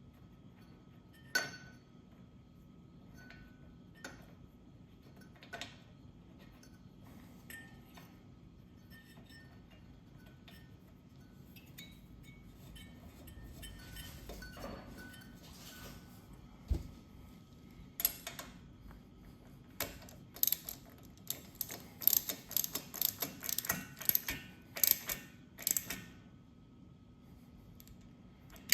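Sharp metallic clicks and clinks of hand tools working on a motorcycle's spark plug and cylinder head: a few scattered clicks at first, then a quick, irregular run of clicks in the last third.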